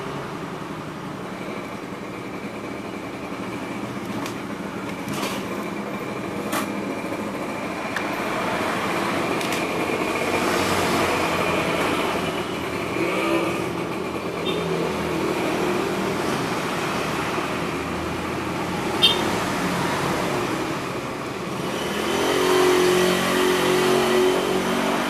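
Steady background motor-vehicle traffic noise, with an engine growing louder near the end and a few light clicks.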